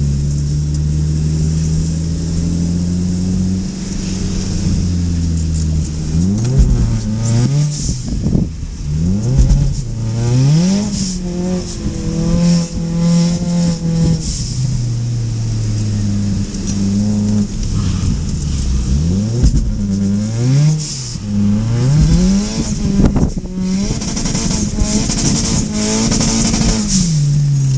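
Ford Mustang EcoBoost's turbocharged four-cylinder engine on track: it holds a steady pitch for the first few seconds, then revs up and drops back again and again as the car is driven hard.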